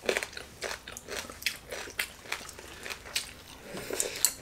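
Close-up chewing of crispy Vietnamese roast pork (thịt heo quay), its crackling skin crunching in a quick, irregular run of sharp crackles.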